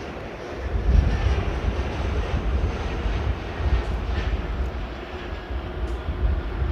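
Jet airliner engines rumbling loudly, swelling about a second in and staying strong.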